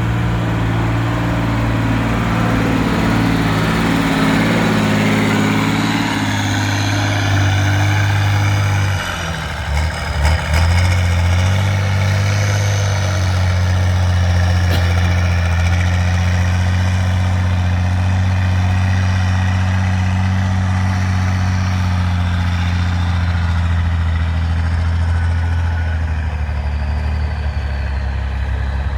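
Trial truck's heavy engine running steadily at low revs, with a brief drop and change in its note about nine to ten seconds in before it settles again at a slightly different pitch.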